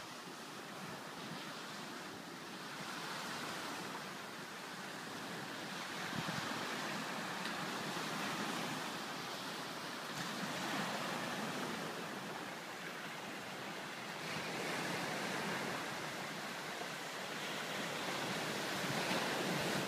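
Waves breaking on a pebble and rock beach, the surf swelling and easing every few seconds.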